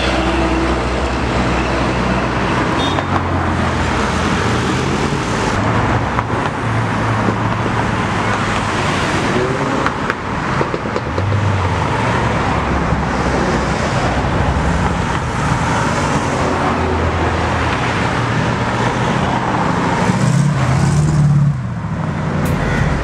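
Road traffic with cars driving past, engines running and tyre noise, one car's engine louder for a second or so near the end.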